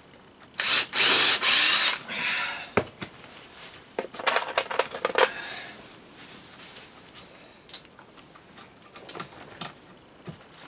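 Cordless drill driving a screw into a wooden frame joint in two short bursts, its motor winding down after about two seconds. About four to five seconds in, a cluster of knocks and clatter as tools are handled on the wooden bench, then only faint light clicks.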